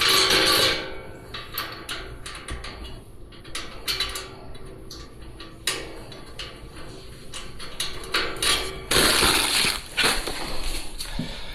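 Metal parts clinking and knocking with many sharp clicks, and a louder scraping rush at the start and again about nine seconds in.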